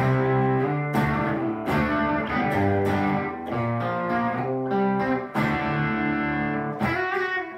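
Sunburst Stratocaster-style electric guitar strummed in chords, with a new chord struck about every second and the pitches shifting from chord to chord.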